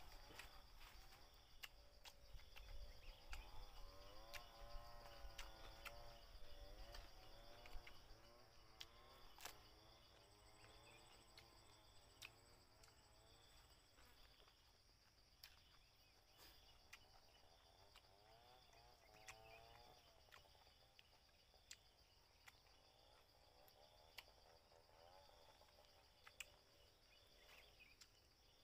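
Faint forest ambience: a steady high-pitched insect drone, with a few faint scattered clicks.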